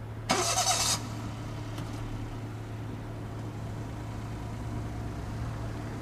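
Steady low engine hum, with a brief loud noisy burst lasting well under a second near the start.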